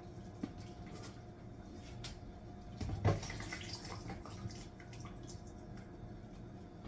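Water pouring steadily into a kitchen sink as a pot of boiled potatoes is drained. There is one short knock of the pot about three seconds in.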